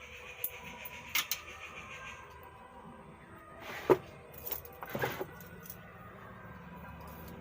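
Small hand tools and parts clicking and clattering on a workbench: a few sharp snaps and knocks, the loudest about four seconds in, with a low steady hum coming in a little after five seconds.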